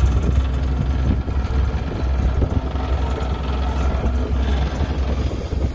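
A boat's engine running steadily with a low drone while the boat is under way, with wind and water noise over it.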